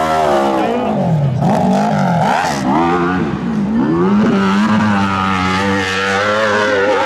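Dirt bike engine revving hard under load on a steep hill climb. Its pitch falls and rises several times in the first few seconds as the throttle is worked, then holds high and fairly steady.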